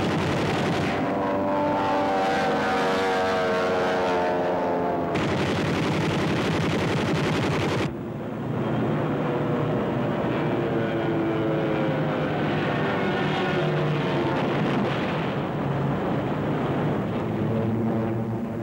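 World War II piston-engined fighter aircraft in flight, their engines droning loudly with the pitch sliding up and down as they manoeuvre. The sound changes abruptly twice, about five and eight seconds in.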